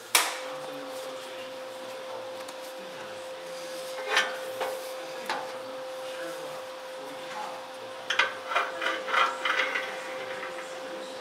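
A steady hum throughout, with a sharp knock at the start, a couple of clicks about four and five seconds in, and a run of rattling and scraping near the end as a plasma cutter torch is handled and set against a steel plate.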